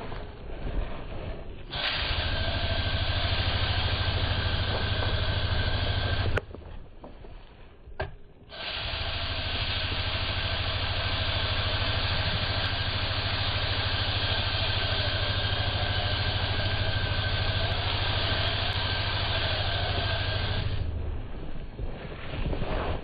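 Powered sprayer running with a steady hiss over a low motor hum, spraying mold treatment: on for about four and a half seconds, off for about two, then on again for about twelve seconds before cutting off.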